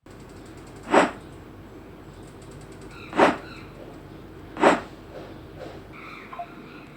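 Three short whoosh-like sound effects played one after another, each lasting a fraction of a second, as effects in a phone editing app's sound-effect library are previewed.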